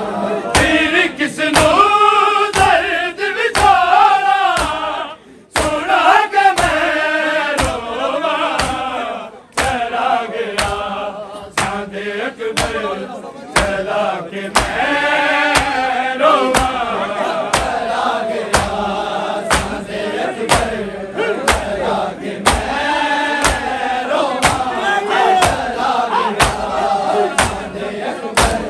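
A group of men chanting a noha, a Shia lament for Hussain, in unison, over a steady rhythm of sharp beats that fits matam (chest-beating) by the gathering. The chant breaks off briefly twice, about five and nine seconds in.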